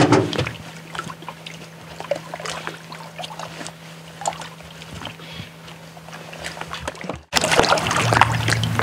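Small outboard motor on an inflatable dinghy idling with a steady low hum, with small splashes and knocks of water and gear against the boat. About seven seconds in the sound breaks off for an instant and returns much louder, the motor running stronger.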